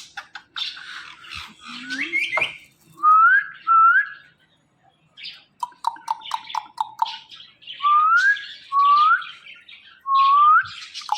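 Ringneck parrot whistling and chattering. Noisy chatter opens it, then come a pair of clean rising whistles, a quick run of about seven short chirps, and three more rising whistles near the end.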